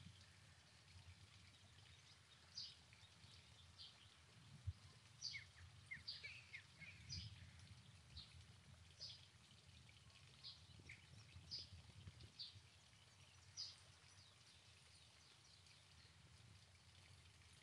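Faint outdoor ambience: small birds chirping with short, high calls roughly once a second, some sliding downward, over a low, steady background rumble.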